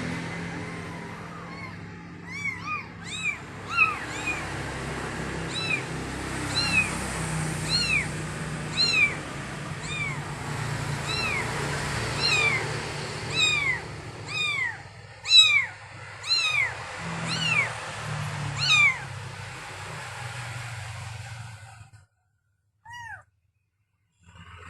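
Kittens mewing over and over: short high-pitched mews that rise and fall, about one a second, some overlapping at different pitches, over a steady background noise. Near the end the background drops out and a single mew is heard on its own.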